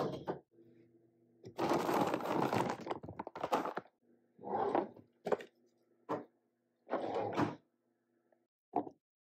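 A Toshiba microwave oven hums steadily while it runs, stopping near the end. Over the hum come several sudden crackling and clattering handling noises of dog food being prepared in a bowl, the loudest and longest about a second and a half in.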